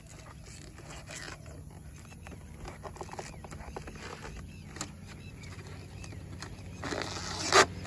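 Purple vinyl wrap film being peeled off a motorcycle's plastic fuel-tank cover: faint crackling and rustling with small ticks, swelling to a louder ripping crackle near the end.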